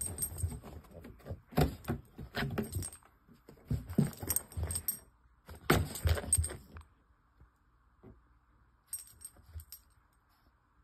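Metal tags on a French bulldog's collar jangling in several bursts as the dog jumps and bounces about, with low thumps under each burst; the last, shorter jingle comes about nine seconds in.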